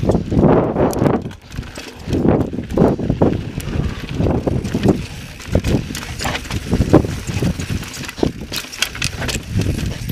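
Mountain bike riding over rock: wind buffeting the microphone in uneven gusts, with many irregular clacks and rattles as the tyres, fork and chain hit ledges and loose stones. The rumble briefly drops off about a second and a half in.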